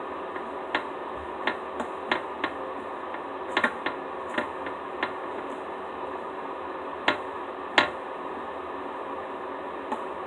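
Slime being worked by hand, giving irregular sharp clicks and pops, about a dozen, over a steady background hiss.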